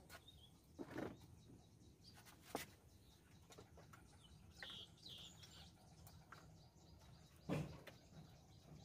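A few soft knocks and clatters of firewood and cookware being handled at a wood-fired stove, the loudest near the end, over near silence. Faint bird chirps come in around the middle.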